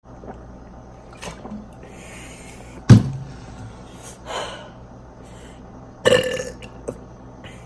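A person burping: one very loud, abrupt burp about three seconds in, a softer one a little later, and a longer pitched burp about six seconds in.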